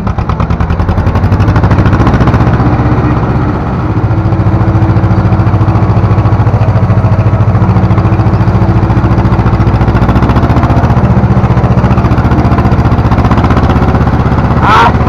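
Ursus C-330 tractor's two-cylinder diesel engine running hard under load while pulling a three-furrow plough, heard from inside the cab. It opens up over the first couple of seconds, sags briefly around four seconds in, then runs steadily at full throttle.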